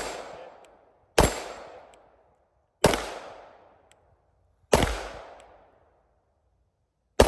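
Handgun shots fired one at a time at a slow, deliberate pace: four sharp reports roughly one and a half to two and a half seconds apart, each trailing off in an echo lasting about a second.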